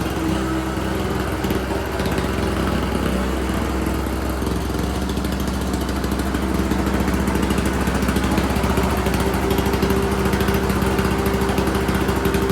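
Ariens 722 snowblower's 7 hp Tecumseh two-stroke engine running steadily, still warming up from a fresh start; it gets a little louder about halfway through.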